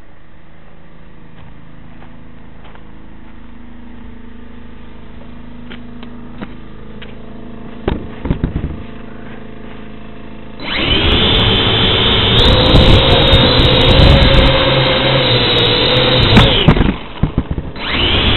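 Small RC quadcopter's electric motors and propellers spinning up to a loud, steady whine right at its onboard camera, after a few knocks as it is set down on the asphalt. The whine drops away about 17 seconds in, then spins up again near the end.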